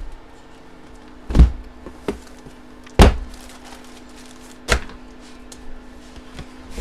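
Cardboard card boxes and packs being handled and set down on a table: three loud thunks about a second and a half apart, with lighter knocks and rustles between, over a faint steady hum.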